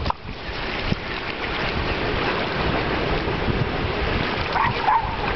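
Steady rush of wind on the microphone over small waves lapping at a shallow shoreline. Near the end a dog whines in a few short, wavering notes.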